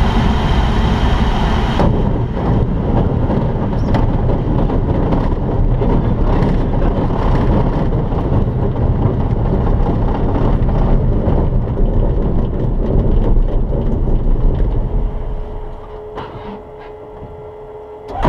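T-10M light aircraft rolling out on a grass strip with its engine off: the wheels and airframe rumble and rattle over the uneven ground. The noise dies away about 15 seconds in as the plane slows, leaving a faint steady hum.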